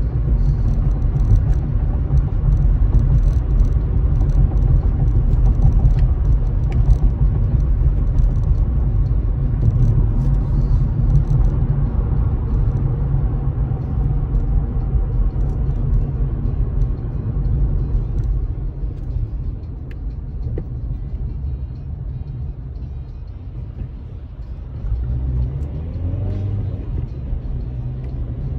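Car driving, heard from inside the cabin: a steady low rumble of engine and road noise. It eases off after about two-thirds of the way as the car slows toward a junction, then picks up a little near the end.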